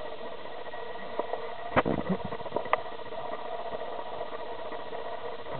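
Camera handling noise: a steady hiss with a few sharp bumps and knocks, the loudest about two seconds in.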